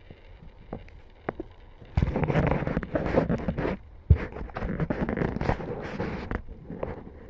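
Dry straw and twigs rustling and crackling, starting suddenly about two seconds in, with a sharp knock about four seconds in.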